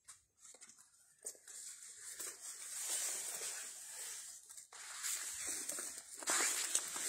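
Irregular rustling and crackling of dry palm fronds and leafy shrubs brushed and trodden on close to the phone, starting about a second in, with a short lull past the middle.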